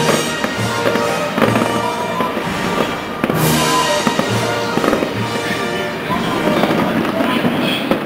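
Fireworks shells bursting in a string of bangs, the loudest about three seconds in, over loud music with held tones.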